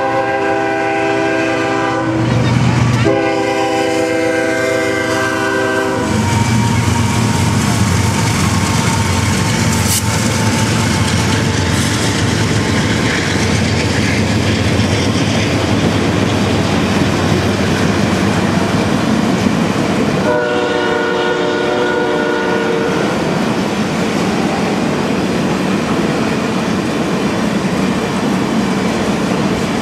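Amtrak passenger train led by GE P42DC diesel locomotives sounding its horn in two long blasts, then rushing past with a steady rumble and clatter of wheels on the rails; the horn sounds one more long blast about twenty seconds in.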